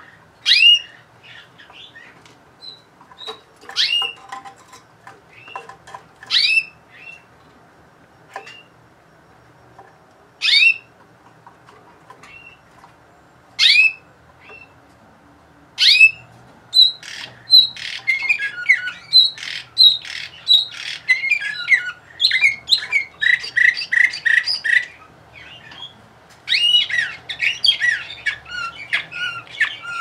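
Domestic canary giving single sharp chirps every few seconds, then a little past halfway breaking into continuous song: quick varied notes and rapid trills, with one short pause before it sings on.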